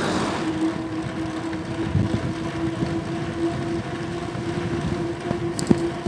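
An Aostirmotor S17 e-bike's electric motor whining at one steady pitch while riding, under a haze of wind and road noise. A couple of sharp clicks come near the end.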